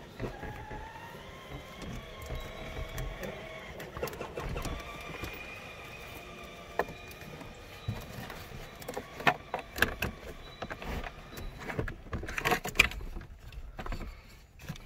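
Clicks and rattles of hard plastic center-console trim and brackets being handled and pushed into place, in a cluster of sharp clicks in the second half. In the first half a whine with several pitches slowly wavers in pitch, then fades out.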